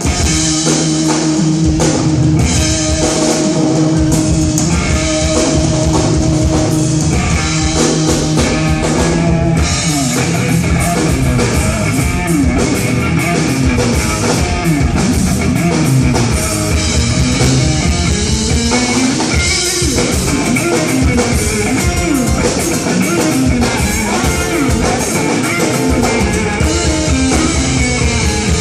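Rock band playing live: drum kit and guitars, with sustained bass notes, starting abruptly right at the beginning as the song opens with an instrumental intro.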